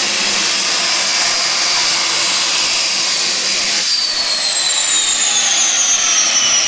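Gas turbine engine of a turbine-powered 1989 Batmobile, a loud steady jet-like hiss and high whine as the car drives by; about four seconds in, the whine starts falling in pitch as it passes.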